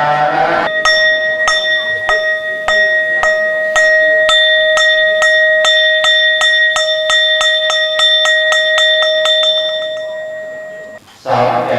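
Buddhist ritual bell struck in a quickening roll: strikes start under a second apart and come faster and faster until they run together, over one continuous ring, which then fades away near the end before chanting resumes.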